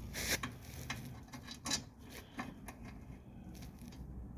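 Scattered light clicks and taps, about half a dozen, as the headlight parts are handled and tried in place.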